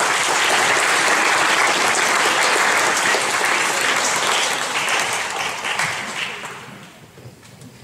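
Audience applauding, loud and steady, then dying away about six seconds in.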